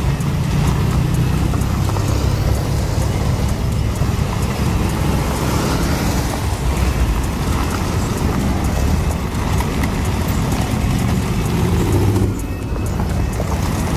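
Motor trikes pulling away one after another, their engines running with a deep low rumble as each passes close by. The sound dips briefly near the end.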